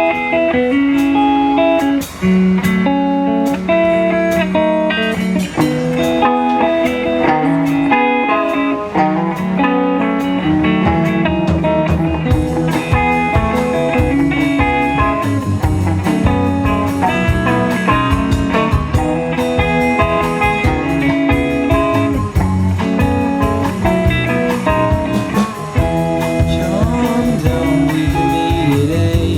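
Live band playing an instrumental intro led by guitar, with a steady beat coming in about twelve seconds in.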